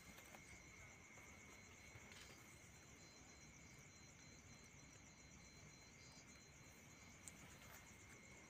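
Faint, steady high trilling of night insects, otherwise near silence, with a light click near the end.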